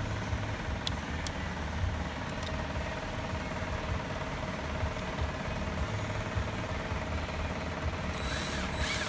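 Steady low machine drone in the background, with a few light clicks of plastic parts being handled as a carpet-extractor pump is worked into place on its mount.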